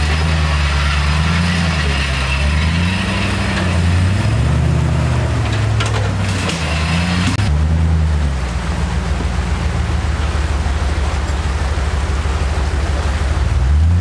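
Off-road 4x4's engine revving up and down repeatedly as it crawls over rocks out of a stream bed, then holding a steadier low note from about halfway.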